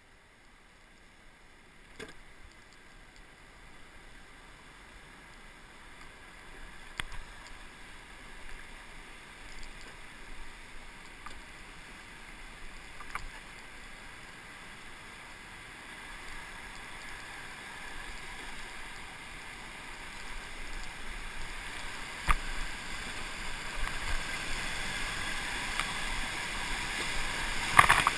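Rushing whitewater of Lava Falls Rapid on the Colorado River, growing steadily louder as the raft closes on it, with a few short knocks along the way. Near the end the raft enters the rapid and water splashes over the bow.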